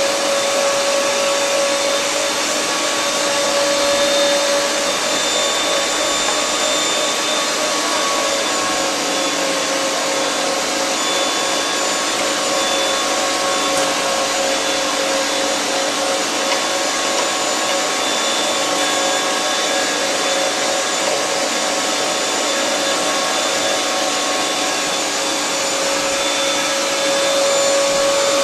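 Arçelik K 1766 1400 W electric meat grinder running steadily under load, its motor giving a constant pitched hum, as it regrinds minced meat into finer mince.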